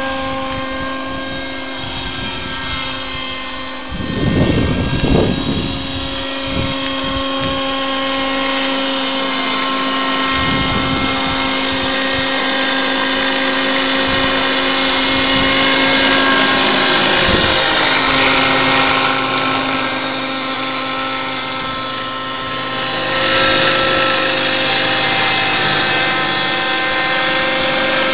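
Homemade helicopter's motor and rotor running with a steady, even-pitched whine. A louder low rumble comes about four seconds in, and a few weaker rumbles follow later.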